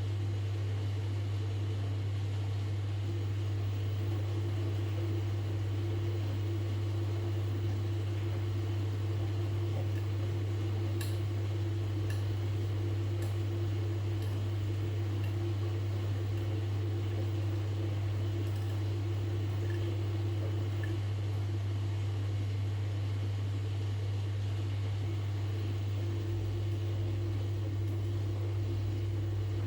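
Washing machine running with a steady low hum and a fainter higher tone held even throughout, with a few faint clicks about eleven to fifteen seconds in.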